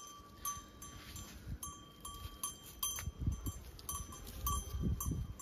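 Small metal bell on a young bull's neck clinking irregularly as the animal shifts about, with a few low thuds in the second half.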